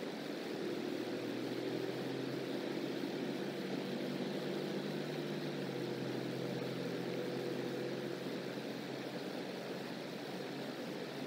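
A distant engine droning steadily, dropping slightly in pitch about halfway through and fading near the end, over a steady rushing background noise.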